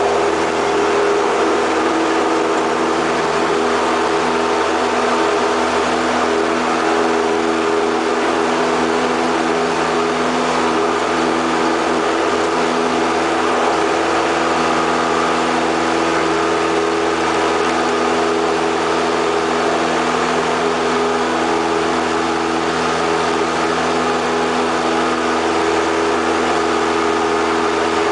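Light single-engine airplane's piston engine and propeller at takeoff power, a steady drone through the takeoff roll and climb-out, heard inside the cockpit.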